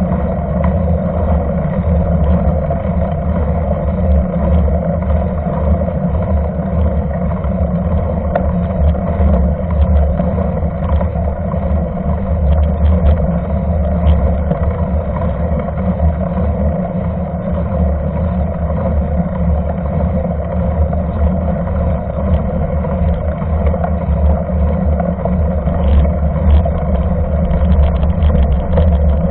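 Steady rumbling noise of a mountain bike rolling along wet asphalt: the knobby tyre running on the road, with wind buffeting the camera's microphone.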